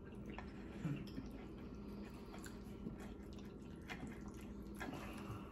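Faint eating sounds of spaghetti being twirled on a fork and chewed: a few soft clicks, over a steady low hum.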